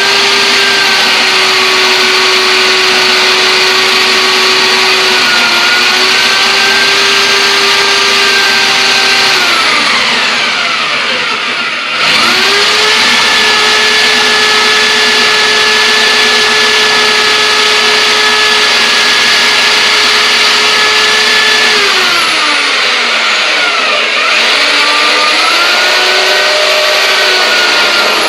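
Electric drill boring a hole into a thick oak slab, run in three bursts: the motor runs steadily, winds down, then spins up again twice. Its pitch dips briefly about five seconds in as the bit bites. A steady rushing noise continues under it throughout.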